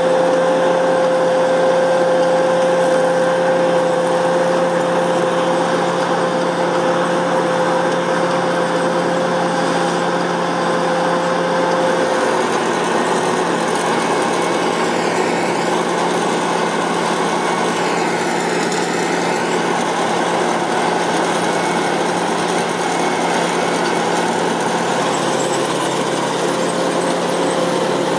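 Massey Ferguson 7360 PL Beta Paralevel combine harvester running under load while harvesting, a steady machine drone with a steady whine that drops out about halfway through and comes back near the end.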